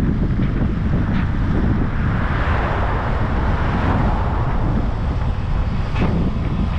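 Steady road noise from a car on the move: a deep rumble of tyres and wind, with a hiss that swells and fades around the middle.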